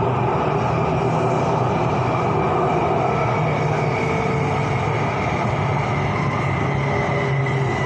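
BTS Skytrain electric train running along the elevated line: a steady rumble of running noise with a motor whine drifting slowly down in pitch.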